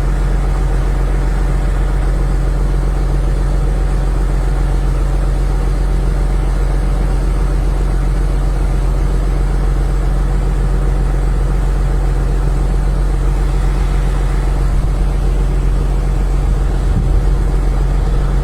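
Engine running steadily at idle, a constant low hum that does not change pitch.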